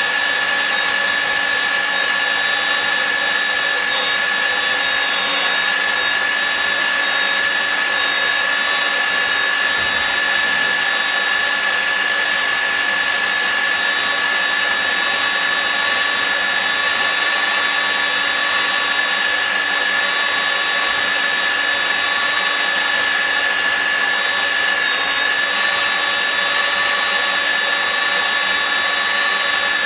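Nitto WA-5000 magnetic drill running steadily, a constant high whine over a rushing motor noise that holds unchanged throughout.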